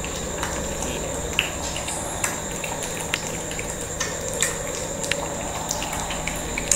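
Shih Tzu puppies wrestling on a hard floor: sharp light clicks and taps of claws and paws, about once a second, over a steady background hum with a faint high whine.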